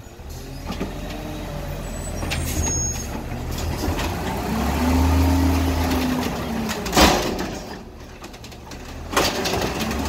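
Autocar WX garbage truck revving up and back down to drive the Amrep automated side loader's hydraulic arm as it lifts a cart. There is a sharp bang about seven seconds in and another knock a couple of seconds later.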